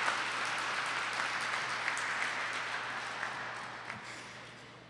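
Audience applauding, the clapping fading away toward the end.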